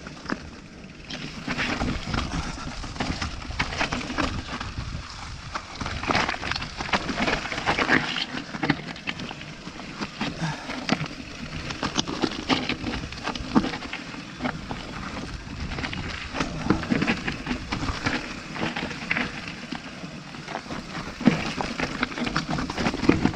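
Mountain bike descending a rocky singletrack at speed: tyres crunching over loose stones, with many sharp rattles and knocks from the bike and a low rumble underneath. It grows loud about a second in.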